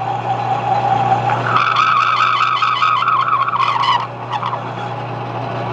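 Metal lathe turning a wooden handle blank while the tool bit takes a taper cut: the motor hums steadily under a high squeal from the cutting tool. The squeal jumps higher and louder about a second and a half in, wavers, and stops at about four seconds.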